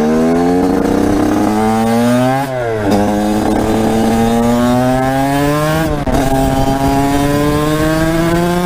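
2010 TM 125 SMR supermoto's two-stroke single-cylinder engine, on a full Scalvini exhaust, revving up under acceleration. The pitch drops at two upshifts, about two and a half and six seconds in, and climbs again after each.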